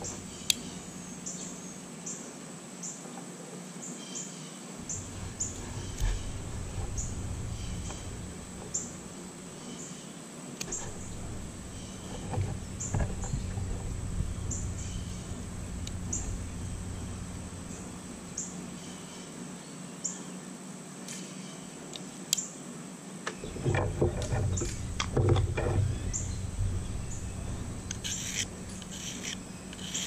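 Metal clicks and snaps of a Leatherman Wave+ multitool being handled, its tools folded open and shut, with a cluster of louder clicks and knocks a little over three-quarters of the way through. Short high chirps repeat in the background.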